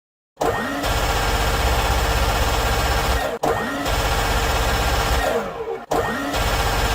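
Minigun sound effect: the rotary gun firing in long bursts of very rapid fire, two full bursts and the start of a third. Each burst opens with a rising whine as the barrels spin up and winds down with a falling whine.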